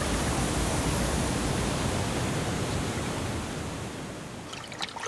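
Cartoon sound effect of rushing, churning water: a steady dense rush that fades away over the last second or so, with a few short clicks near the end.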